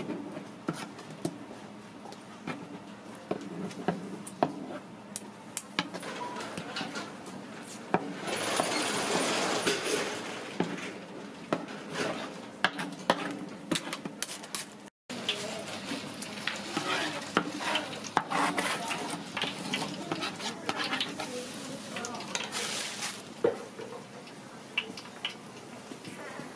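Metal knives scraping and tapping on a plastic cutting board as fish cake paste is spread over bread, with many short clicks. After an abrupt cut about halfway, hot oil sizzles as the coated toasts deep-fry, with clicks of metal tongs turning them.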